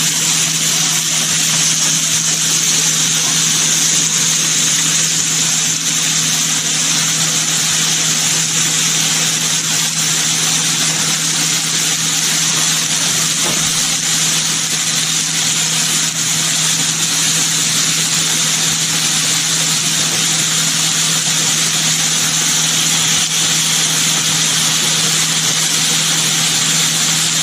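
Diced potato and broccoli frying in olive oil in a frying pan: a steady sizzle, with a low hum underneath.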